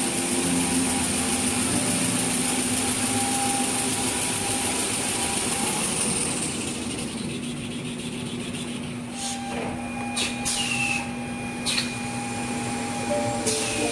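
Industrial toilet paper rewinding and cutting machine running: a steady machine noise, with a few sharp clicks in the second half.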